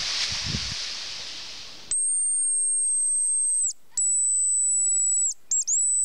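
A hazel grouse decoy whistle blown to imitate the grouse's call: a very high, thin, pure whistle held for nearly two seconds, a second long note, then two short notes, each falling off in pitch at its end. Before it, a steady hiss fades away over the first two seconds.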